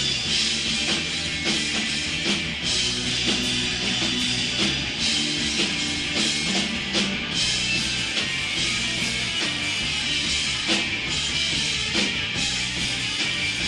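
Rock band playing live: electric guitar over bass and drums, with regular drum strikes and cymbals, steady and loud throughout.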